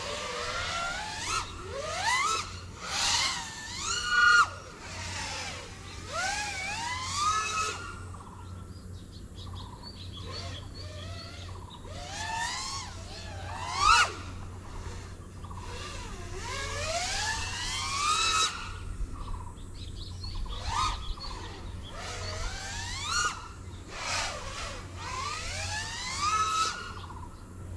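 GEPRC Mark5 5-inch FPV quadcopter's motors and propellers whining, the pitch sweeping up and down again and again as the throttle changes; loudest about four and fourteen seconds in.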